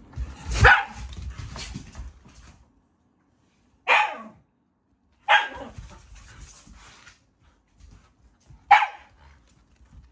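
Shiba Inu giving four short, sharp barks spread a few seconds apart, each dropping in pitch, as it demands another dog's bone chew.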